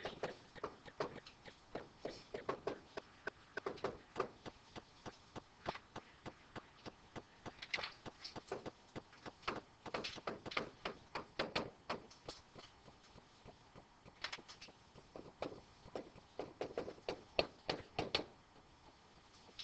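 Irregular light taps and clicks, in quick clusters, of a pen writing on an interactive whiteboard.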